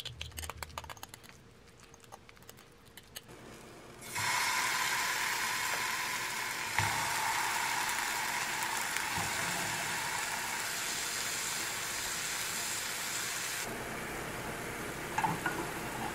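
Tofu slices frying in oil in a non-stick pan, a steady sizzle that starts abruptly about four seconds in. Before it, faint light clicks of a fork stirring mashed potato in a ceramic bowl.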